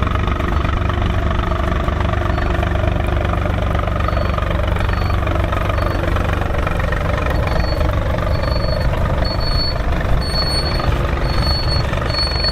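Volvo BM tractor's diesel engine running steadily while ploughing. A regular high-pitched beep starts faintly about four seconds in and grows louder.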